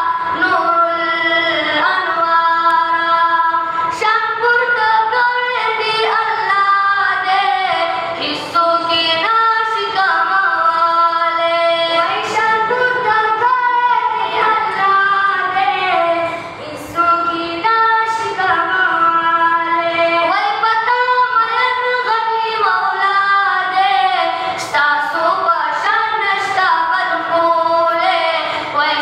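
Two boys' high voices singing a Pashto naat into a microphone with no instruments. The melody moves through long held notes and ornamented turns, with a brief break about two-thirds through.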